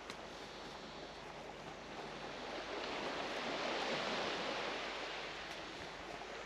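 Small waves washing onto a sandy shore, a soft rushing that swells about halfway through and then fades back.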